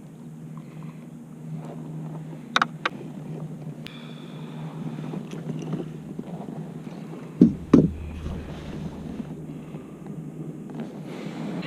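Clicks and knocks of handling gear on a kayak: a light pair, then a louder pair past the middle, over a steady low hum.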